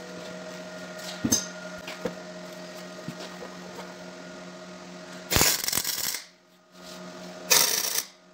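Two short MIG tack welds on a steel tube engine-mount bracket, each a loud crackle lasting under a second, about five and a half and seven and a half seconds in. A steady hum runs between them.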